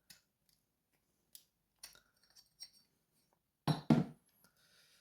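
Small metal padlock parts clicking and clinking as the lock is taken apart by hand. Two louder knocks come close together about four seconds in.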